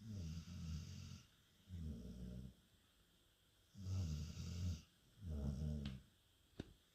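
Dog snoring in a steady rhythm: four rumbling snores of about a second each, two of them with an airy hiss on top. A short click near the end.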